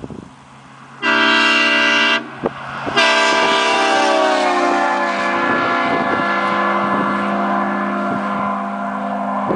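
Aftermarket train horn on a Chevy Z71 pickup, sounding a chord of several steady notes. First comes a short blast of about a second, then a long blast starting about three seconds in that sags slightly in pitch and then holds.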